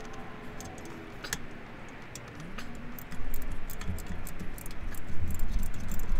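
Hand socket ratchet clicking as it backs out a loosened starter bolt: irregular sharp clicks, louder and quicker from about three seconds in.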